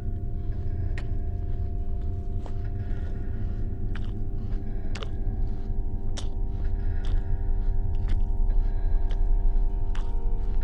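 Chewing and biting sounds with sharp crunches about once a second, over a low steady droning score that slowly grows louder.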